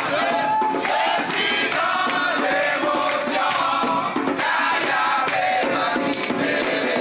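A group of people singing and chanting together, many voices at once.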